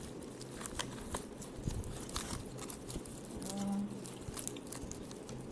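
Plastic mesh bag of garlic bulbs being pulled and picked open by hand: scattered small crackles and rustles of the netting and papery garlic skins. A short hummed voice sound comes about three and a half seconds in.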